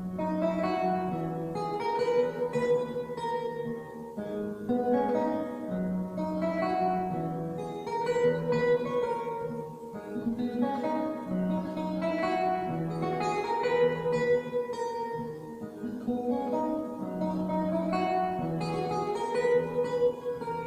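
Background music: an acoustic guitar plucking a repeating pattern of notes over a cycling bass line.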